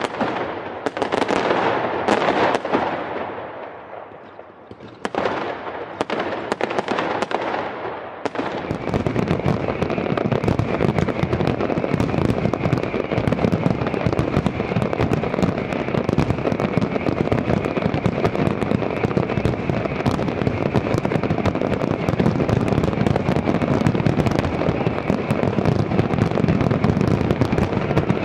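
Fireworks going off: a few separate bangs, each trailing off in crackle, over the first eight seconds or so, then a dense, continuous crackling barrage.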